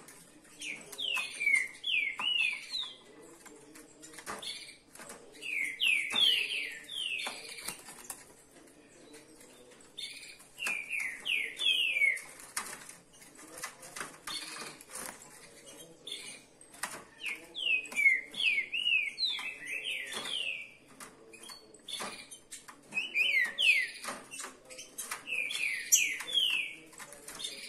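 Caged green-winged saltators singing at a rival in the next cage: about five short bouts of quick, downward-slurred whistled notes, a few seconds apart. Between and under the bouts come frequent clicks and wing flutters as the birds hop and flap in their wire cages.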